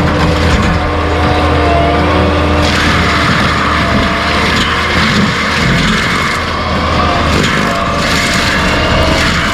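Skid steer engine running hard with its forestry mulcher head grinding stumps and debris. The grinding noise swells about three seconds in, eases around six seconds, and picks up again near the end.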